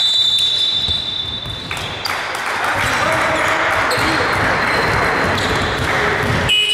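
Indoor basketball game: voices echoing through the gym and a basketball bouncing on the hardwood floor, with a steady high tone lasting about two seconds at the start and another near the end.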